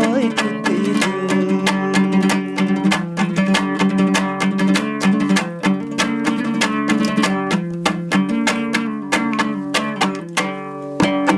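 Music: a plucked string instrument strummed in quick, even strokes, playing an instrumental folk tune with no singing. It dips briefly in loudness near the end.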